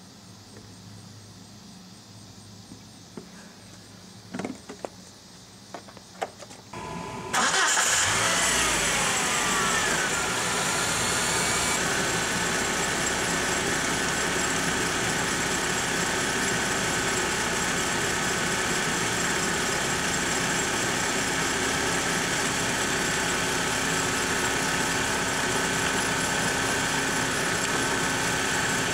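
2002 Saturn SL2's 1.9-litre DOHC four-cylinder engine starting about seven seconds in, then idling steadily, with the cooling system being refilled. Before the start there are only a few faint clicks.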